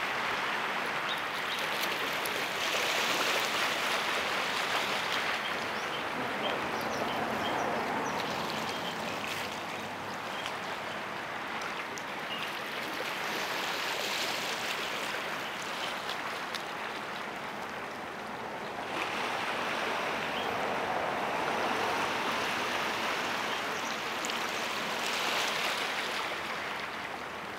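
Water rushing and splashing in waves, with no clear engine note. The noise swells and eases every five or six seconds, like wash breaking along a waterfront.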